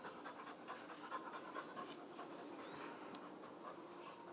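Young American Pit Bull Terrier panting.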